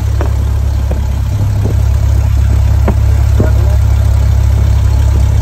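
A Cessna 172SP's four-cylinder Lycoming engine and propeller heard from inside the cabin: a loud, steady low drone. A few light knocks or rattles come through in the first few seconds.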